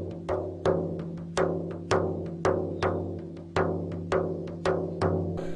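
Music: a steady low drone under sharp, ringing percussive strikes about twice a second, each dying away before the next.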